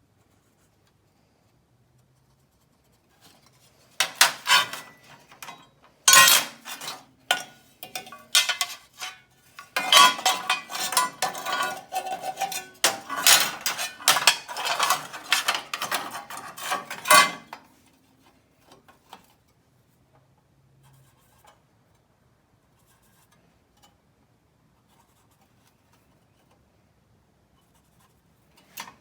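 Irregular metallic clanking and clinking with some ringing, as sheet-metal parts and tools are handled and knocked together. It starts about four seconds in, runs for about thirteen seconds, then stops.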